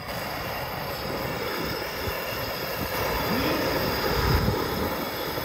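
Steady rushing noise of a portable gas burner heating a pot of boiling ramyeon broth, with a few low bumps about four seconds in.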